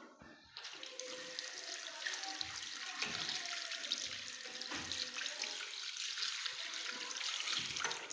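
Tap water running into a sink during hand washing. It turns on about half a second in and shuts off just before the end.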